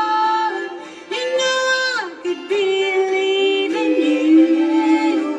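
Bluegrass band playing live, with long held sung notes over acoustic string instruments; one note slides down about two seconds in.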